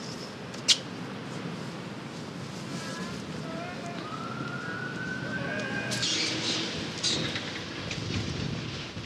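City street ambience: a steady low traffic hum, with a faint tone rising slowly in pitch in the middle, like a distant siren. There is a sharp click about a second in and short rustling hisses near the end.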